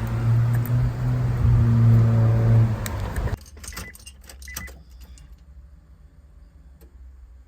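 Honda Civic's B-series engine running with a steady hum, then switched off about three seconds in, the sound cutting off abruptly. A few light clicks and rattles follow.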